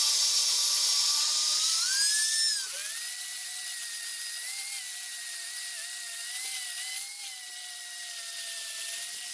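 Electric angle grinder with an abrasive disc running at a high whine as it is worked over a cast-iron plate to clean up its surface. Its pitch climbs about two seconds in, then drops lower and wavers as the disc bears on the metal.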